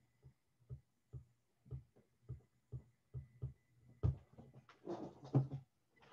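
Faint, short knocks of a stylus on a tablet as a word is handwritten, about two a second, followed about four seconds in by a louder knock and a short run of rustling and knocking from handling things on the desk.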